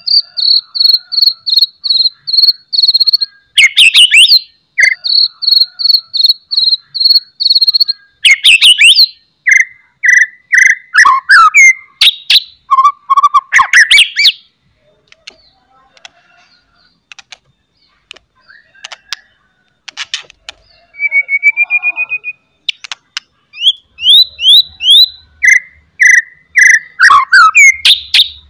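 White-rumped shama (murai batu) singing in full, vigorous song. It opens with a fast run of short, harsh chattering notes, about four a second, then moves into loud, sharp whistles and slurred notes. There is a sparser stretch with faint ticks in the middle, and a rising trill and more whistled phrases come toward the end.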